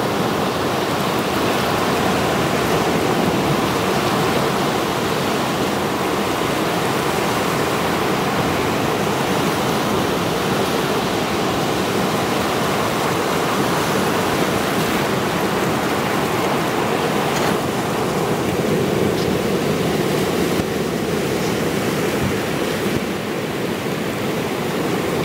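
Mediterranean surf: rows of waves breaking and washing over rocks on the shore, a continuous loud rush of churning water.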